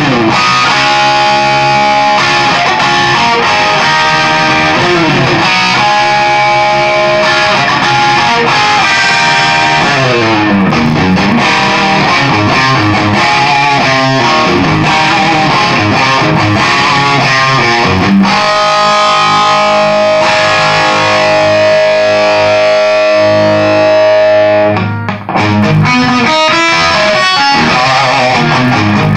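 Electric guitar with a Wolfgang pickup played through an EVH 5150 III 50-watt 6L6 head on its crunch (blue) channel with the gain at half: a distorted rock tone that comes very close to the 'brown sound'. Riffs and chords ring on, with a long held note about two-thirds through, a brief break, then quicker notes near the end.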